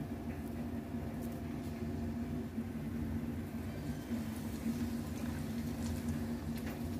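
Steady low mechanical hum from a kitchen appliance, with a few faint light clicks from wooden chopsticks handling breaded chicken against the pan and bowl.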